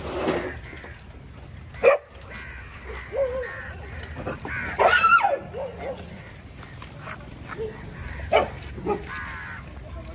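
Dogs barking and yelping in short scattered calls, the loudest and longest about five seconds in, with a sharp knock just before two seconds.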